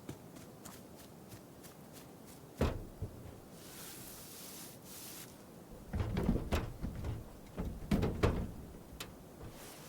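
Quiet room-tone foley: faint scattered clicks, a sharp thud about two and a half seconds in, a brief hiss, then a run of low knocks and thumps that tails off near the end, like things being handled and set down.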